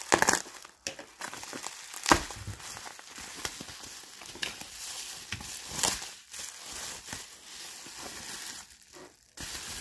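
Plastic bubble wrap being cut open and handled: irregular crinkling and rustling of the plastic, with a few sharper crackles, the loudest near the start, about two seconds in and about six seconds in.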